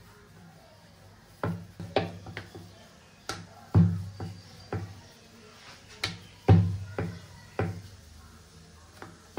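Wooden rolling pin working a ball of dough on a floured round wooden board: a string of irregular wooden knocks as the pin strikes and rolls over the board, each with a brief low ring.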